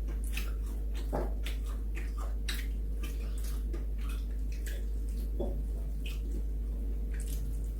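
Close-up mouth sounds of someone eating fried chicken: irregular wet smacking and chewing clicks, a few a second, over a low steady hum.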